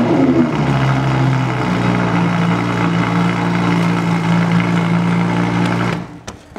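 Audi R8 supercar engine just started: the revs fall from the start-up flare over the first second or so into a steady idle, then the engine cuts off suddenly about six seconds in.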